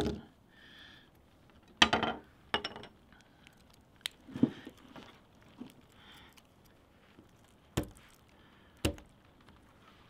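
Short, sharp knocks and clicks, about seven of them, spread irregularly: small hazel-wood pieces set down on a wooden table, and a Victorinox Swiss Army knife being handled as one of its tools is opened.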